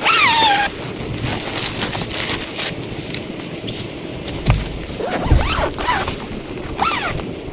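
Heavy rain falling steadily. A few short cries gliding in pitch come right at the start and again around five to seven seconds in, and two dull thumps land in between.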